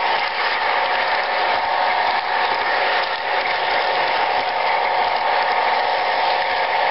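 Model train running fast on layout track, heard from a freight car it is carrying: a steady mechanical rattle and clatter of the wheels on the rails with a steady whine.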